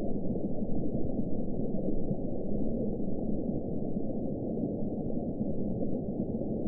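Deep-sea underwater ambience: a steady, dense low rumble, muffled, with no high sounds at all.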